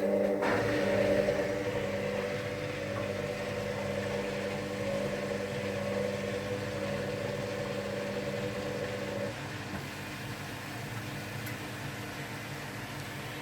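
Hoover Dynamic Next machine running a drying cycle: a steady motor hum over a rushing, fan-like noise. About nine seconds in the humming tone cuts out and only the rushing continues, a little quieter.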